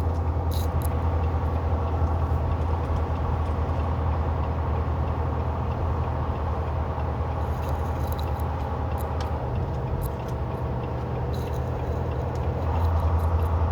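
Semi truck's diesel engine running with a steady low drone, heard inside the cab. The drone eases off in the middle and comes back stronger near the end.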